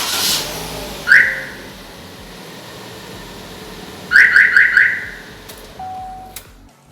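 Starline car alarm siren chirping: one chirp about a second in, then four quick chirps about three seconds later, with a short lower beep near the end. Four chirps are the alarm's signal that the immobiliser-bypass programming attempt has not taken.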